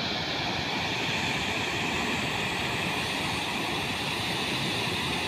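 Water pouring down a dam's concrete spillway and churning into the river below: a steady rushing noise.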